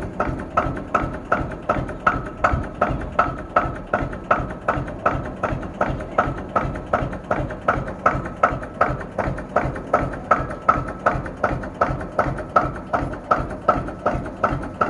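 Single-cylinder two-stroke hot-bulb engine of a Bulldog tractor idling, an even chug of about three beats a second.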